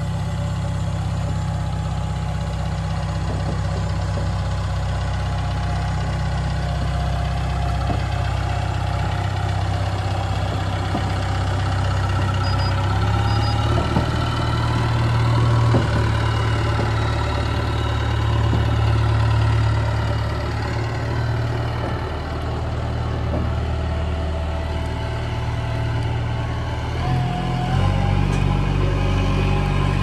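Diesel engine of a freshly serviced JCB backhoe loader running steadily while the machine is driven and tested. The engine note gets louder in the middle and steps up in pitch near the end.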